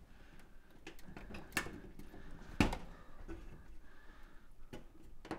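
Quiet handling noise of hands working among the wiring under a raised electric stove cooktop, pulling at the plug connectors: scattered light clicks and knocks, with one sharper knock about two and a half seconds in.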